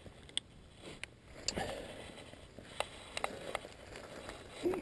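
Norco Storm hardtail mountain bike rolling along a dirt trail: faint tyre noise with irregular clicks and rattles from the bike over bumps.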